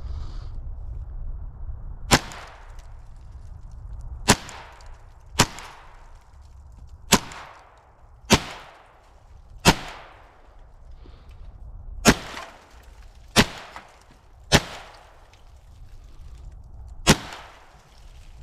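Ten pistol shots fired one at a time at an uneven, unhurried pace, one every one to two and a half seconds, each a sharp crack with a short echo trailing after it.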